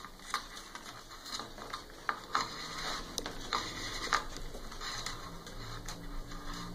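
Light scattered clicks and rustling of a motor cable being handled and pulled through a slot in an MDF printer frame.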